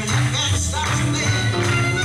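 Music with a steady beat and a moving bass line.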